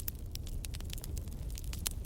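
Fire in a fireplace crackling: a steady scatter of small sharp snaps and pops over a low rumble of the flames, with a louder pop near the end.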